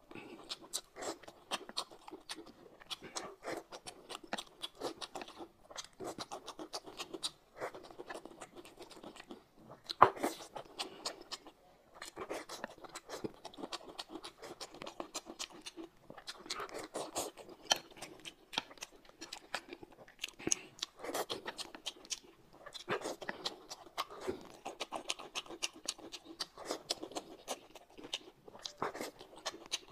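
Close-miked mukbang eating sounds: a man chewing and slurping boiled dumplings in chili oil, with irregular clicks and scrapes of chopsticks on the plate. There is one sharp, louder click about ten seconds in.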